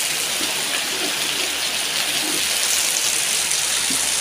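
Heavy rain pouring steadily onto wet concrete and leaves, a dense even hiss.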